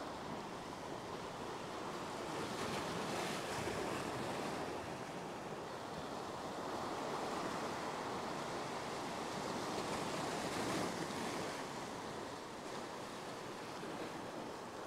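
Ocean surf washing over shoreline rocks: a steady rushing wash that swells louder a couple of times.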